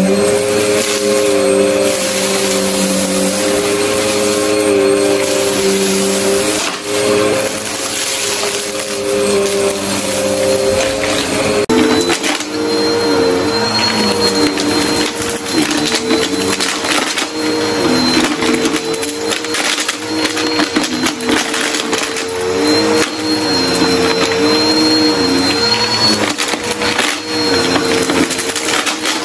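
Upright vacuum cleaners running on carpet, with a crackle of debris being sucked up. For about the first twelve seconds a Shark upright vacuum runs at a steady pitch over confetti and balloon scraps. Then a Bissell upright takes over, pulling up a thick mat of dust and lint from a shag rug, its motor pitch sagging and recovering again and again.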